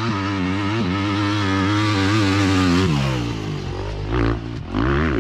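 A 250 dirt bike's engine held at steady, wide-open throttle on the run-up to a jump, its note wavering. About three seconds in, the engine note drops lower, and two short hissing bursts follow near the end.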